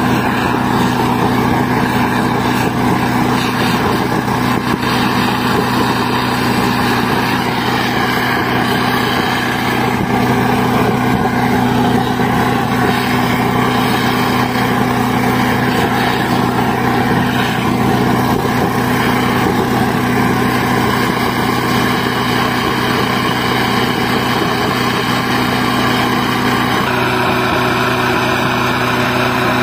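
Steady drone of a small engine-driven air compressor running to feed the preheating burner of a rail thermit weld, with a rushing noise over the engine note. The sound shifts slightly near the end.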